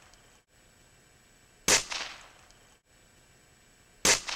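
Remington Vantage 1200 .177 break-barrel air rifle firing twice, about two and a half seconds apart. Each shot is a sharp crack that trails off over about half a second.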